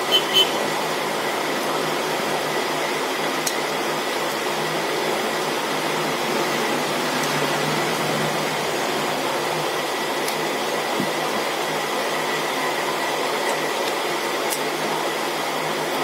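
Steady fan-like background hum and hiss at an even level, with a few faint clicks of small plastic phone parts being handled.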